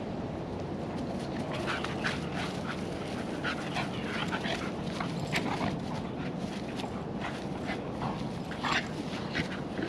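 Two dogs play-fighting, with many short yips and whimpers coming in quick, irregular succession from about a second and a half in.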